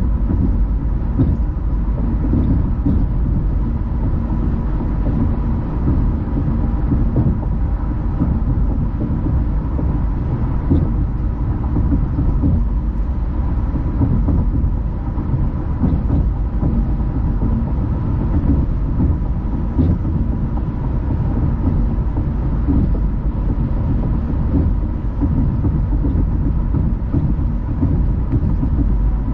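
Car driving at road speed: a steady low rumble of tyre and engine noise.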